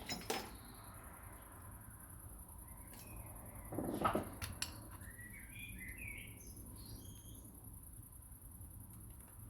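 A bird chirping a few short calls in the background, about five to seven seconds in. A brief clatter about four seconds in is the loudest sound, with a few faint clicks around it.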